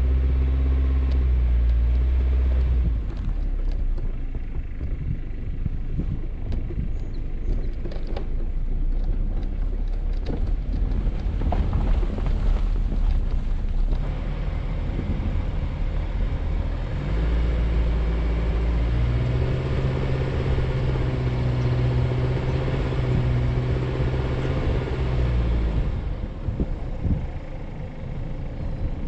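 Vehicle driving through sand on all-terrain tires: the engine runs steadily at first, then comes a long stretch of gritty crunching with scattered clicks of sand and stones under the tires. About halfway through, the engine note rises and holds under load for several seconds, then drops away near the end.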